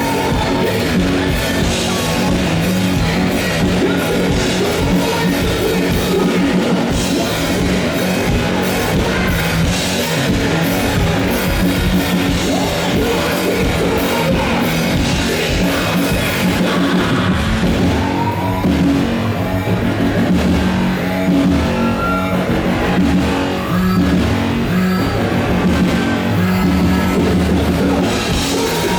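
Live rock band playing loudly, with drum kit and electric guitar, during a festival sound check.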